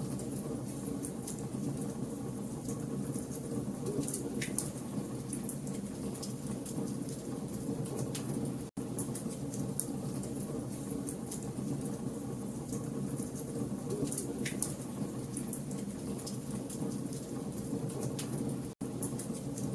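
Campfire logs burning with a steady low rumble of flames and constant fine crackling, with a couple of sharper snaps. The sound cuts out for an instant twice, once near the middle and once near the end.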